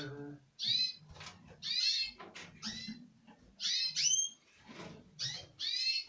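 Small cage birds chirping in a bird room: a run of short calls, each a quick cluster of high falling notes, coming about once a second.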